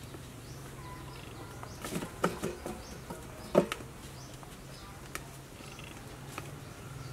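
Wood fire crackling under a large aluminium soup pot, with a few sharp crackles or knocks about two and three and a half seconds in over a low steady hum, and faint bird chirps.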